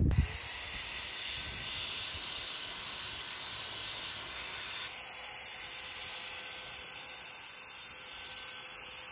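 Handheld electric paint spray gun running with a steady hiss as it sprays water-thinned wood lacquer onto a timber beam.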